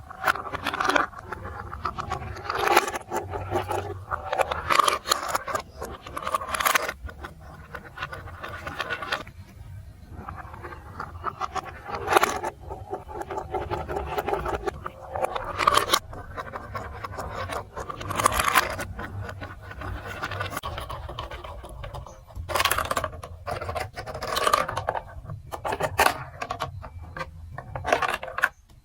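Plastic marble run building-block pieces being handled, with irregular scraping and sharp clicks as they are sorted and fitted together.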